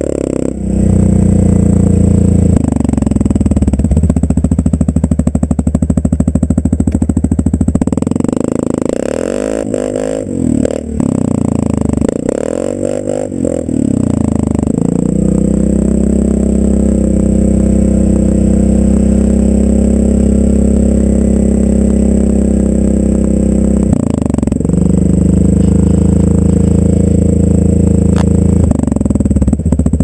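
Yamaha Grizzly 550 ATV's single-cylinder four-stroke engine held at high revs while the ATV spins its tyres in snow. Several times in the middle the revs drop and climb back up, and once more briefly later on.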